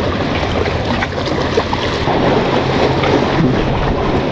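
Wind noise on the microphone over sea waves washing against breakwater boulders, steady throughout, with a faint low hum underneath.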